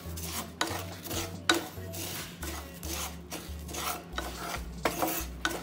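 Wooden spatula scraping and stirring whole spices and black salt as they dry-roast in a pan: a steady rasping scrape with a sharp knock about once a second.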